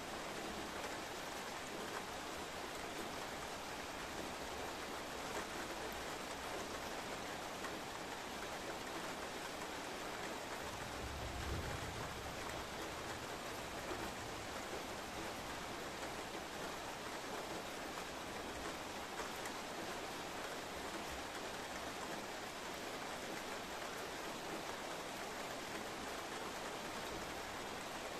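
Steady rain falling, an even hiss throughout. About eleven seconds in there is a brief low rumble.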